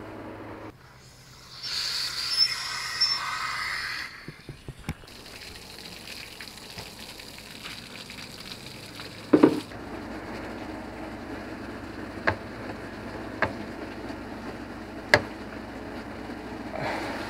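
Water spraying and splashing for about two seconds over a steady low hum, followed by scattered sharp knocks and clicks, the loudest about nine seconds in.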